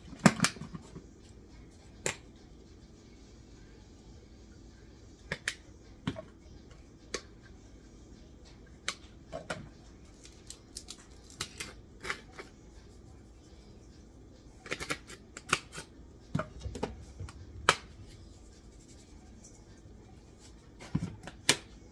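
Spice jars handled, opened and set down, with light clicks and taps scattered throughout and a few quick clusters, as seasonings are shaken into a stainless steel bowl of flour.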